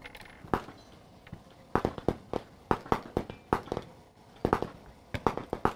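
Gunshots from other shooters on a busy rifle range: a dozen or so sharp cracks at irregular intervals, some in quick pairs.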